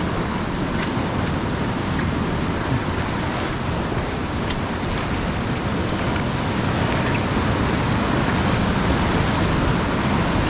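Ocean surf washing steadily onto the beach, with wind rumbling on the microphone, a little louder in the second half.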